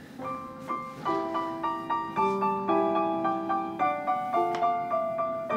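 Background music: a piano playing a quick, even run of short notes, coming in just after the start and growing louder over the first second.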